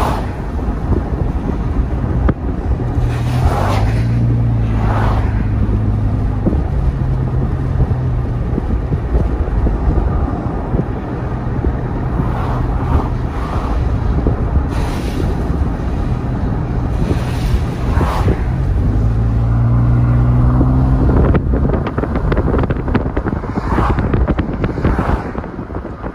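Car driving along a road: steady road and wind noise of the moving car, with a humming drone that swells twice and several brief whooshes of other vehicles passing.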